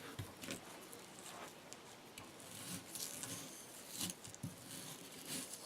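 Bark River Gameskeeper knife slicing into partially frozen chicken: faint, scattered light scrapes and taps.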